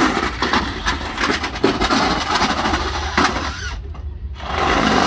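Radio-controlled cars' motors running as the cars ram each other, with sharp knocks of the cars hitting each other and the wooden boards of the pen. The noise briefly eases a little before four seconds in.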